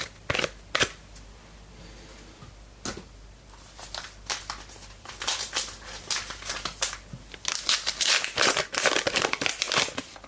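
A trading-card pack wrapper crinkling and tearing as it is opened, with the cards being handled. It makes a run of sharp crackles and rustles, sparse at first and dense through the second half.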